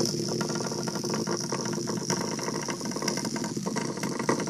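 Small electric motor of a motorized Num Noms toy whirring steadily with a rattle as the toy moves across a wooden floor.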